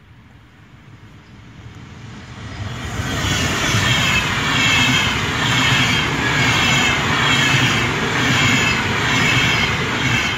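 Double-deck passenger train running through a station without stopping: its rumble and wheel noise swell over the first three seconds as it approaches, then stay loud as the coaches pass, with a regular pulse just over once a second, and start to fade near the end.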